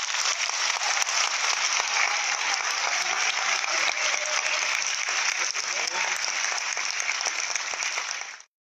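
Concert-hall audience applauding at the end of a choir's song, a dense steady clapping that cuts off suddenly near the end.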